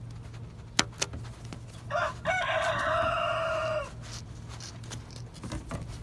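Two sharp snips of shears cutting through the ribbed plastic vacuum hose, about a second in. Then a rooster crows once, a single call held for about two seconds.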